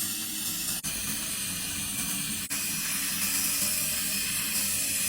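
Steady air hiss from dental equipment at work on a tooth, briefly cut off twice by edits.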